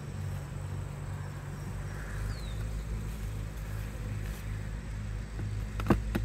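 Honeybees buzzing around the hives as a steady low hum, with a couple of sharp clicks near the end.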